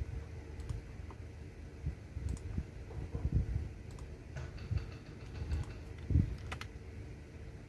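Typing on a computer keyboard: irregular keystrokes, mostly dull low thuds with a few sharper clicks, the loudest stroke about six seconds in.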